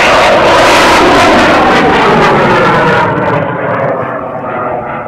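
High-power rocket motor's exhaust roar as the rocket climbs away just after liftoff. It is loudest over the first three seconds; then the high end drops away and the roar fades as the rocket gains distance.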